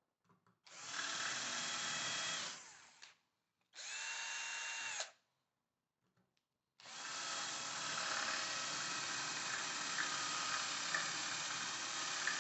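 Cordless drill drilling out stuck screws in the side cover of a Bafang geared hub motor, after a screw extractor failed. It runs three times: a short run about a second in, a brief one around four seconds in that spins up and winds down, and a long steady run from about seven seconds on.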